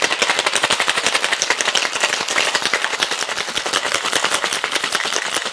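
Ice rattling inside a stainless-steel cocktail shaker shaken hard and fast: a loud, continuous clatter of rapid hits.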